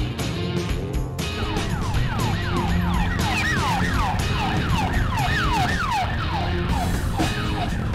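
A yelping siren sound, a fast run of falling sweeps about three a second, starting about a second in over background music with a steady beat.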